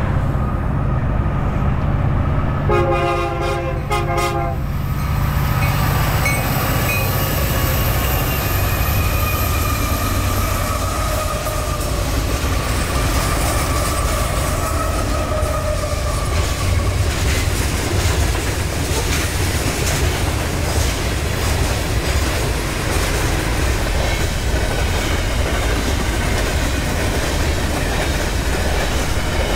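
Union Pacific freight train passing: its horn sounds two short blasts about three seconds in while the diesel locomotives approach with a low engine drone, then the locomotives go by and the freight cars roll past with a steady rumble and clickety-clack of wheels on the rails.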